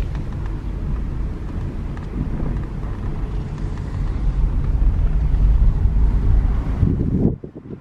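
A car driving: a steady low rumble of engine and road noise, building a little louder toward the end before cutting off abruptly about seven seconds in.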